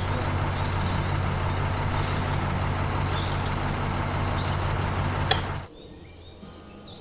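Heavy truck engine running steadily with a hiss over it, cutting off sharply about five and a half seconds in.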